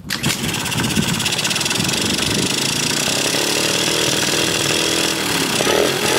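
Yamaha Jog scooter's 50 cc two-stroke single running, its pitch climbing a little partway through and then easing back.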